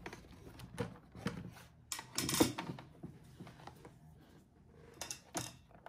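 Scattered clicks, taps and rustles of cables and plugs being handled, with the loudest cluster about two seconds in.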